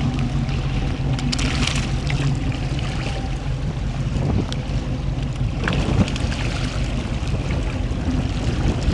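A 35-foot Bertram's engine idling with a steady low hum, over water sloshing and splashing around the boat and wind on the microphone, with a few brief splashes.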